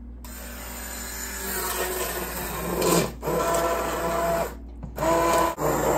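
Handheld immersion blender motor whirring as its blade churns butternut squash soup in a stainless steel pot, puréeing it. It switches on just after the start, gets louder over the first few seconds, and cuts out briefly about three seconds in and again around five seconds before running on.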